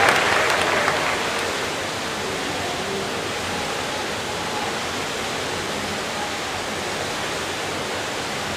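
Spectators' applause dies away in the first second or so. What is left is the steady, even rushing hiss of an indoor diving pool hall, like running water.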